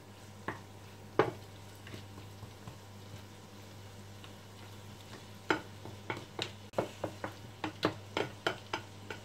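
Wooden spatula stirring shrimp and calamari in a hot frying pan, tapping against the pan: a couple of taps early, then a quick run of taps through the second half, over a low steady hum.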